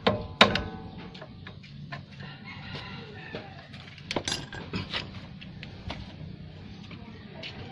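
Two sharp metal-on-metal strikes with a ringing tail, near the start and about half a second later, as a steel bar is struck against the tie rod end and steering knuckle. A few lighter metallic knocks follow about four to five seconds in. A rooster crows in the background in the middle.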